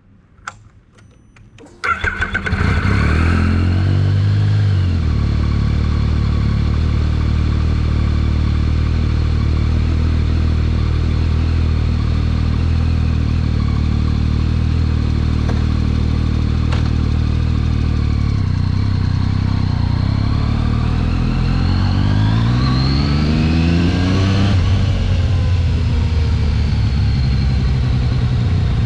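Yamaha XSR900's inline-three engine: a few clicks, then it is started about two seconds in. It runs at a raised idle that settles into a steady idle within a few seconds. Later it is revved up in a slow rise and drops back to idle.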